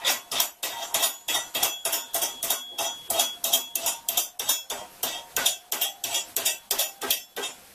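A spanner working a nut down a steel backstop bolt: a rapid, even run of metallic clicks, about four or five a second, that stops near the end.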